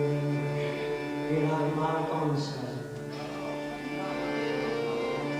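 Hindustani classical music: a harmonium holds a steady drone while a swarmandal is strummed, giving a brief bright shimmer of plucked strings about two and a half seconds in, with a sliding melodic line over the drone around the second second.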